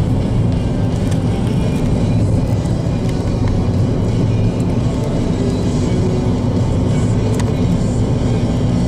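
Steady low rumble of a car's engine and tyres heard from inside the cabin while driving along a road.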